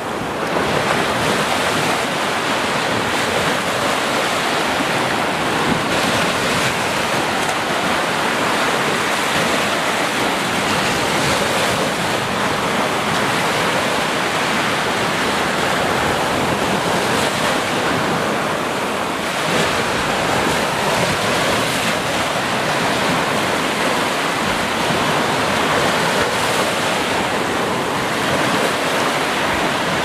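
Small ocean waves breaking and washing up a sandy beach: a steady rush of surf that swells and eases slightly.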